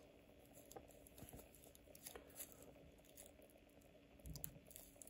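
Near silence, with faint scattered rustles and small clicks from cotton-gloved fingers handling and turning a steel watch on its bracelet.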